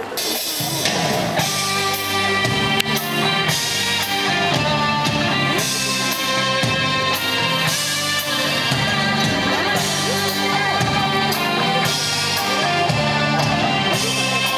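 Eisa dance music starting suddenly, a full-band song with a steady beat.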